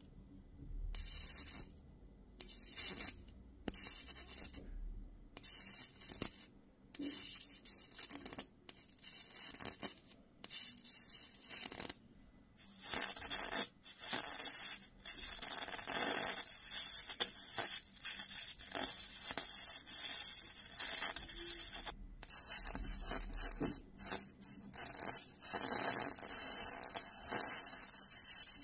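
High-voltage electric arc crackling and sizzling between a flyback transformer's pin and a nearby wire. It comes in short bursts that start and stop as the arc is struck and broken, and runs almost without a break from about halfway through, with a faint high whine.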